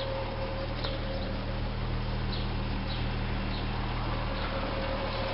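1977 Triumph 2000TC's straight-six engine idling steadily once warmed up.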